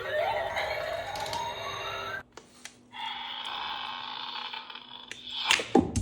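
Electronic toy sound effects: a rising synthesized sweep that cuts off after about two seconds, then a steady hissing buzz for a couple of seconds, followed by a few sharp plastic clicks near the end.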